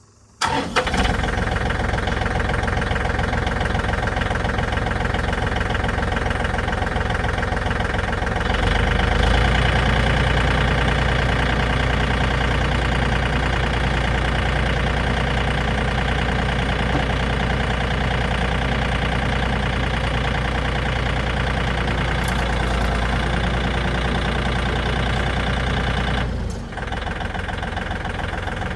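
Tractor engine running steadily while it pulls on a car chassis to straighten it. About eight seconds in its note deepens and gets louder as it takes up the load, then it eases back near the end.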